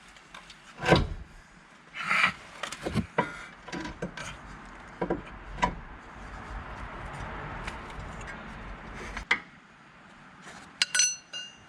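Irregular knocks, clanks and clinks of hand tools and steel suspension parts being handled, the loudest a knock about a second in and a ringing metallic clink near the end.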